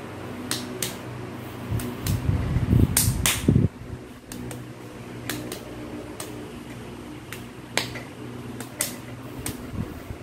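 A child tapping out a rhythmic pattern with light hand claps and pats of the fingers on the palm, in short uneven groups. A steady fan-like hum runs underneath, and a louder low rumbling noise comes about two seconds in and lasts about two seconds.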